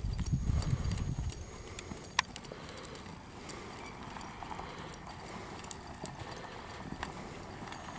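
Hoofbeats of an American Quarter Horse mare trotting on soft arena dirt. A louder low rumble marks the first second or so, and a few sharp clicks stand out, the loudest about two seconds in.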